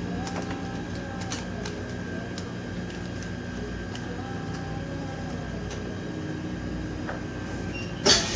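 Chamber vacuum packaging machine's vacuum pump running steadily, a constant hum with a faint whine and light clicks. A brief loud noisy burst comes near the end.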